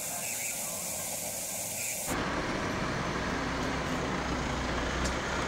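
A steady hiss that gives way sharply, about two seconds in, to construction-site ambience: a low, even rumble of heavy vehicles and traffic.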